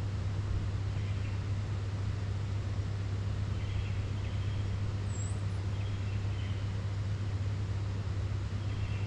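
A steady low machine hum with a constant background rush, unchanging throughout, with faint brief high chirps every second or two.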